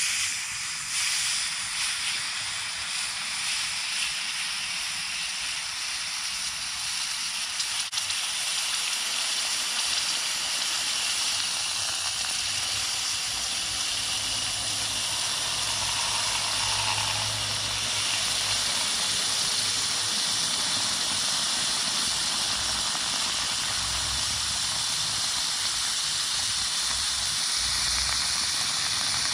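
Hot aluminum casting quenched in a bucket of water, sizzling with a steady hiss that starts abruptly as it goes in.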